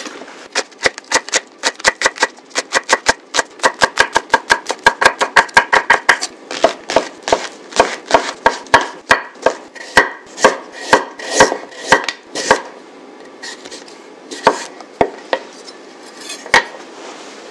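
Chef's knife chopping green onion, mushrooms and carrot on a wooden cutting board: quick, even strokes about four a second, thinning to slower single cuts after about twelve seconds.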